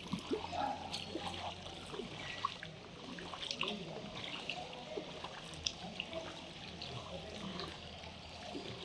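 Floodwater trickling and flowing, with many small scattered splashes.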